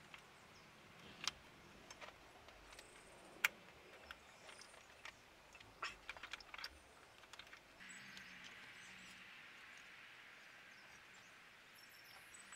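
Near silence, with a number of faint, brief clicks and taps scattered through it.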